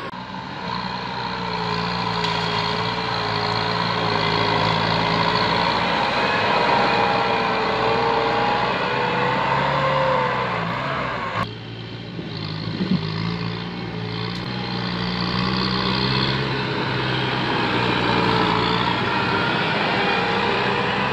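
Kubota tractor's diesel engine running steadily under load while pulling a disc plough through soil, with a slowly wavering whine over the engine note. The sound drops abruptly about halfway through, then builds back up.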